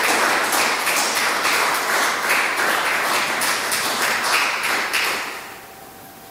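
Audience applause, a dense crowd of clapping hands, dying away about five seconds in.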